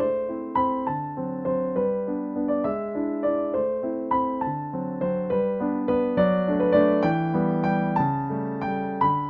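Background music: a slow, gentle piano piece played note by note.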